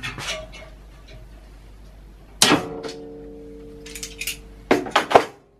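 Metal clank on a steel sill panel and its clamping jig as they are handled. The clank rings on with clear tones for about two seconds. A couple of quick knocks follow near the end.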